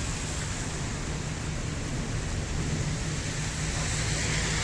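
Strong storm wind blowing across the phone's microphone: a steady low rumble and rush of noise, growing a little louder in the second half.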